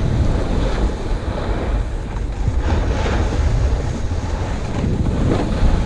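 Wind rushing over an action camera's microphone during a downhill ski run, with the hiss of skis or board edges scraping over packed snow.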